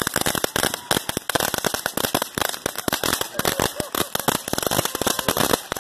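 Ground fireworks going off in a rapid, irregular string of sharp pops and cracks, many a second, without a break.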